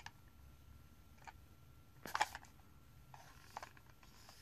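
Faint clicks and light rustling of a plastic OO gauge model locomotive being handled and turned over in the hand, with one louder clatter about two seconds in.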